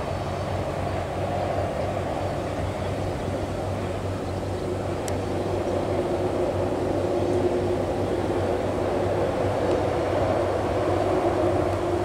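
Steady low rumble of a train crossing a long steel truss railway bridge, with a steady tone joining about four seconds in.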